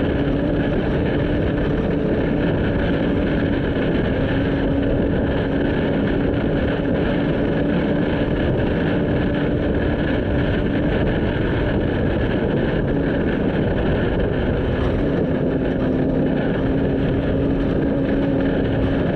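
A vehicle driving at a steady speed, heard from on board: an even engine drone with a steady hum, under heavy road and wind noise.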